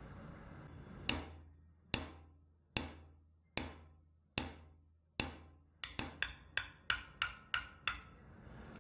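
A hammer striking repeatedly, each blow ringing briefly: about seven slow, evenly spaced strikes, then a quicker run of about eight.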